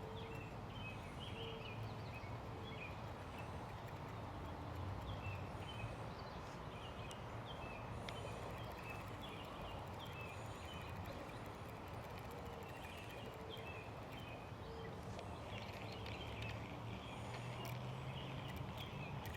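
Outdoor ambience: many short bird chirps repeating over a steady low rushing background.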